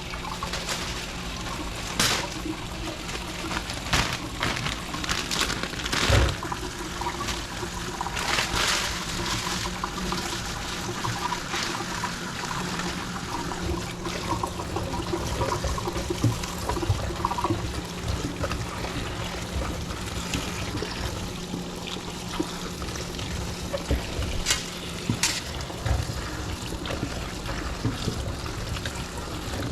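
Water running steadily, like a tap, with a handful of sharp knocks and clinks of items being handled.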